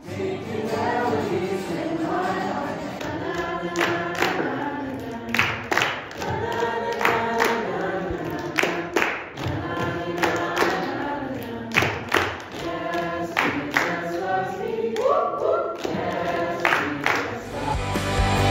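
A group of voices singing a song together, with little or no instrumental backing.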